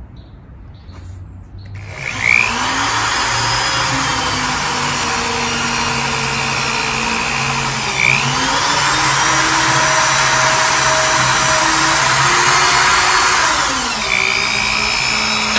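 Hand-held power drill boring a 3/8-inch hole through the wall of a plastic food container. The motor starts about two seconds in and then runs steadily, its pitch dipping and picking up again a couple of times as the trigger is eased.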